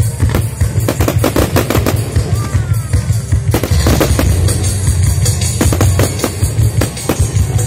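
Aerial fireworks bursting in a rapid run of cracks and bangs, thickest in the first few seconds and then more scattered, over loud music with a heavy low beat.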